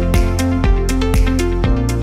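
Electronic background music with a steady beat and sustained synth notes stepping in pitch.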